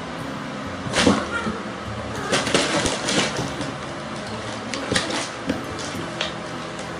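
Two cats play-fighting on a wooden floor: bursts of scuffling and cat noises, loudest about a second in and again around three seconds in.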